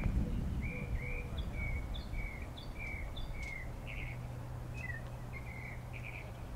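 Small birds chirping in trees: a string of short chirps, about two a second, over a low steady rumble.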